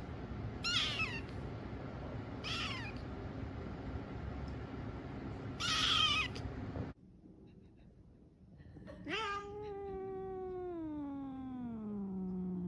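Black-and-white kitten mewing three times: short, high mews that fall in pitch, over a steady background hum. After a break, a cat gives one long, drawn-out meow that slides steadily down in pitch over about three seconds.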